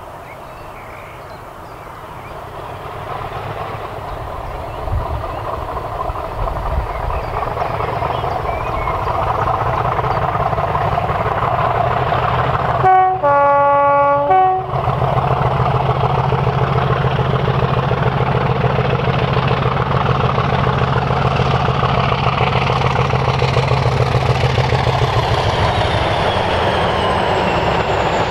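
Class 50 diesel locomotive's English Electric V16 engine growing louder as it approaches under power. Its two-tone horn sounds about halfway through, high note then low. A steady engine drone with clattering wheels follows as the train draws near.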